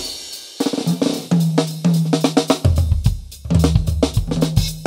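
Drum kit playing a funk groove, with snare, hi-hat, cymbals and bass drum, over a bass guitar holding low notes. The first half-second is sparse before the groove comes in fully.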